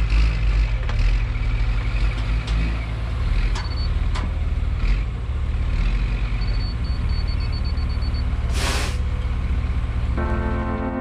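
Caterpillar mini excavator's diesel engine running under load as it digs a trench in rocky soil, with knocks of the bucket and stones. A rapid run of high beeps comes in the middle, a short hiss follows about two seconds later, and music starts near the end.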